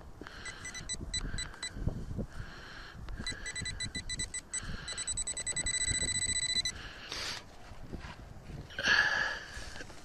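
Handheld metal detecting pinpointer probe beeping in short pulses as it is worked through the soil of a dig hole, breaking into a fast run of beeps midway that signals it is right on a metal target. Soil scraping and knocking underneath, and a short loud rush of noise near the end.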